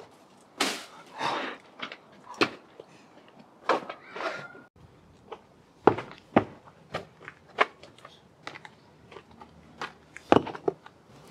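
Footsteps on gritty paving: a string of sharp, irregular steps and scuffs, about two a second in the middle.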